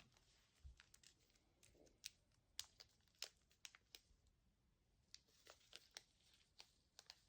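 Faint, scattered little clicks and crackles of sticky slime and its plastic tub being handled.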